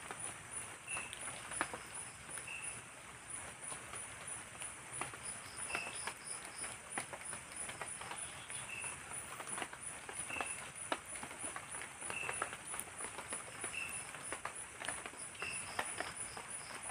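Night forest ambience in light drizzle: irregular drops pattering and dripping, over insects calling, a steady high pulsing repeating a few times a second and a short chirp recurring every couple of seconds.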